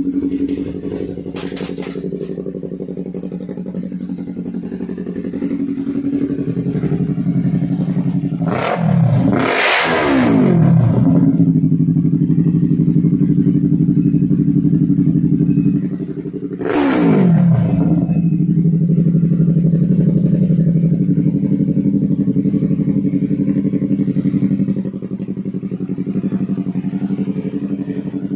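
Yamaha YZF-R3's parallel-twin engine idling through an Akrapovic full-system exhaust, revved twice, once about a third of the way in and again just past halfway, each rev rising quickly and falling back to idle.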